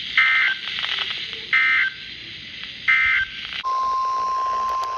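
Three short EAS end-of-message data bursts from NOAA Weather Radio, each a harsh two-pitch digital screech, about a second and a half apart, marking the end of the tornado warning. A moment after the last one, a steady single-pitch weather radio alert tone starts and holds, announcing the next warning.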